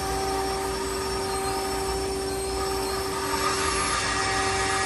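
Live-tool drive of the lower turret on a Nakamura-Tome WT-100 CNC lathe spinning with no tool fitted: a steady machine whine with several fixed tones over a low hum.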